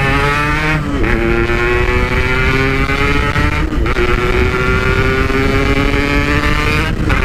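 Two-stroke Yamaha RX-King motorcycle with a Packing Power PK1 aftermarket exhaust pulling hard under full throttle: the engine note climbs, drops briefly at a gear change about a second in, climbs again, shifts once more near four seconds and again near the end.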